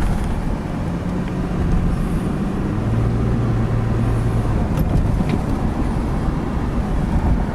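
A car driving, with a steady low rumble of road and engine noise; the engine's low drone drops in pitch around the middle.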